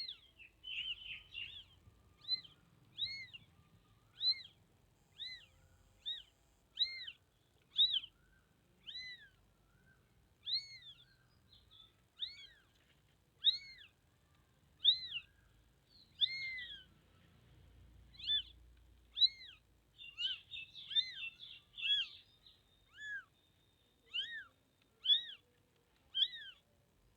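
Newborn kitten mewing over and over, short high-pitched cries about once a second that each rise and fall in pitch, with a quicker flurry of cries a little past two-thirds of the way through. These are the distress calls of a kitten separated from its mother.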